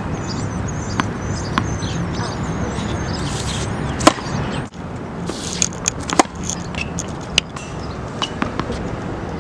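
Tennis racket striking a ball several times, each hit a sharp pop over steady outdoor background noise, the clearest about four and six seconds in.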